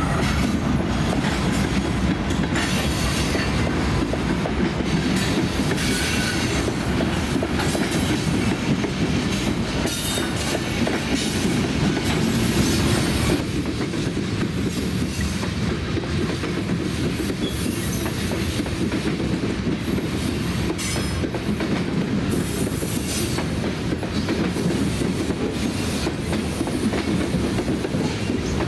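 A freight train rolling past close by: diesel locomotives for the first part, then covered hopper cars, with steady rumbling wheels, clickety-clack over rail joints and intermittent wheel squeal. The sound changes about halfway through as the locomotives give way to the cars.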